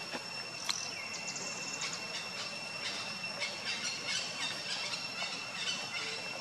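Insects droning with a steady, high-pitched whine, with scattered short chirps and clicks over it.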